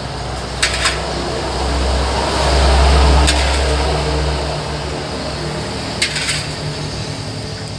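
A metal ladle scooping soup from a wok and pouring it into an enamel pot, with a few sharp clinks of the ladle against the metal. Underneath is a steady low rumble that swells in the middle.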